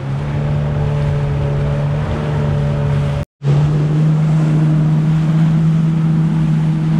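Yamaha FX HO WaveRunner jet ski running steadily at speed, its engine giving a steady drone over the rush of water and spray off the hull. A brief drop-out about a third of the way through, after which the engine note is slightly higher.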